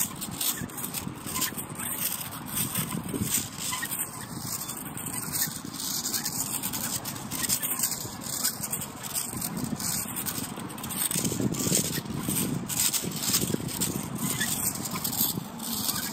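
Garden Weasel nut gatherer's wire-cage roller rolling and scraping over rough asphalt. A continual run of small clicks and rattles comes as foam Nerf Rival balls are pressed into the cage.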